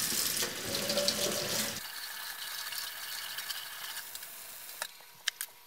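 Tap water running into a sink, rinsing a freshly developed photoresist circuit board to stop the development. The flow drops off sharply about two seconds in, and a few light clicks follow near the end.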